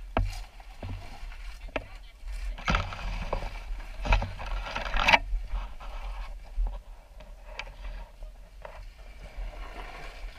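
Scraping and rustling with scattered knocks as a quad bike is manhandled on a dirt slope among dry leaves. The loudest, roughest scraping comes from about three to five seconds in.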